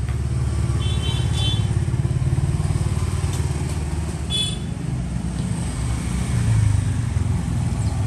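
Motor vehicle engine running steadily, a low rumble, with two brief high-pitched chirps, one about a second in and one about halfway.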